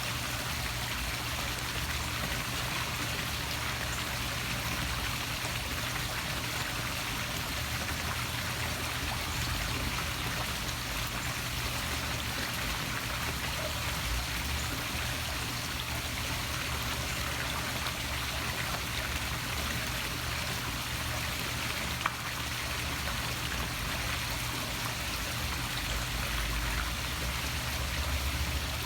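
Poolside waterfall splashing steadily into a swimming pool, a continuous even wash of falling water, with one brief click about three-quarters of the way through.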